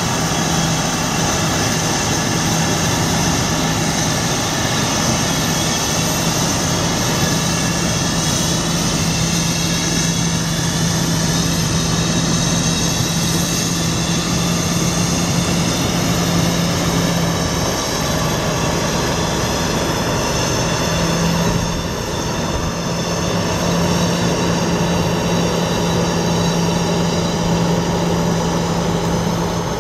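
Detroit Diesel Series 60 12.7 L inline-six turbo diesel of a Freightliner Columbia semi tractor running as the tractor drives slowly, a steady drone with a strong low hum. Its pitch drifts slowly, and it is briefly quieter about three quarters of the way through.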